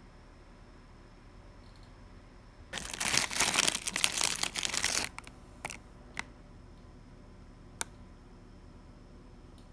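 Foil snack bag inside a cardboard box crinkling for about two seconds as a hand rummages in it, followed by a few short, light rustles.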